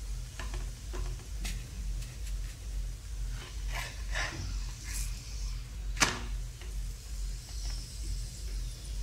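Steel flat spatula clicking and scraping against a non-stick tava as a paratha is turned over, with one sharp clack about six seconds in. Under it runs a steady low hum that pulses about twice a second, from the induction cooktop.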